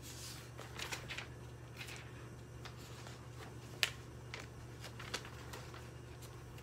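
Faint rustling and light clicks of hands handling and searching through something, with one sharper tick a little under four seconds in, over a steady low hum.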